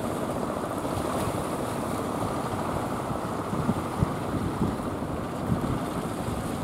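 Surf washing steadily, with wind buffeting the microphone in a few low thumps around the middle.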